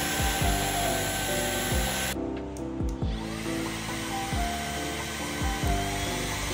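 Background music with a steady beat, over the whir of a Brex cordless handheld vacuum cleaner's motor running. The motor sound drops out for about a second around two seconds in, then starts again.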